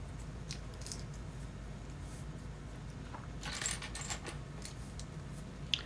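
Faint clicks and rattles of loose plastic LEGO bricks as hands sort through a pile of pieces, with a small flurry of clicks about three and a half seconds in and a sharper click near the end.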